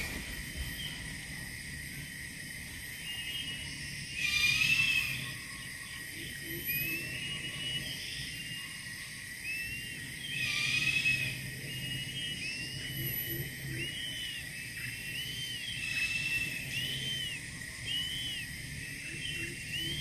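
Crested serpent eagles calling at the nest: short, high, arched whistled notes repeated about once a second, with two louder, harsher bursts of calling about four and ten seconds in. A steady high-pitched drone runs underneath.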